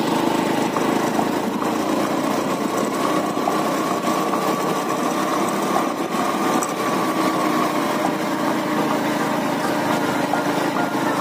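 Small motorcycle's engine running steadily as the bike is ridden, heard from the rider's seat, with a steady hiss over it.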